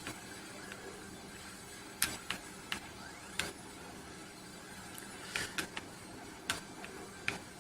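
Plastic buttons of a Matricom G-Pad Bluetooth game controller clicking under the thumbs during play, with about ten sharp presses at irregular intervals over a faint steady hum.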